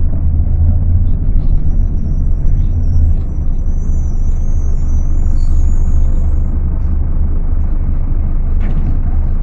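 Scania K250UB city bus's rear-mounted five-cylinder diesel engine running under way, a steady deep rumble. A faint high whistle sits over the middle few seconds.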